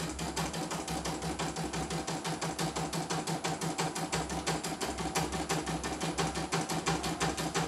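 CNY E900 portable embroidery machine stitching: a fast, even rhythm of needle strokes. This is a test run of the machine after a parts replacement.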